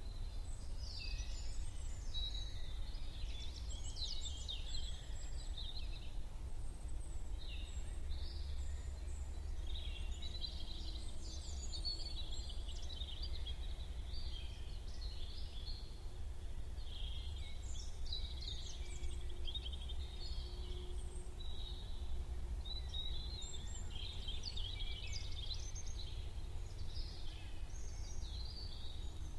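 Morning chorus of several small songbirds, overlapping chirps and short trills, over a steady low rumble.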